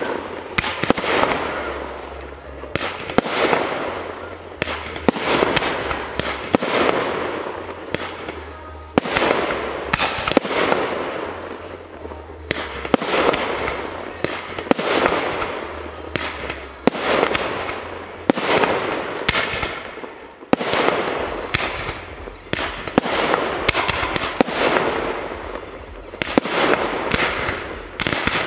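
Aerial fireworks display, shells launching and bursting in quick succession. Each sharp bang trails off in an echoing, crackling decay, about one every second or two.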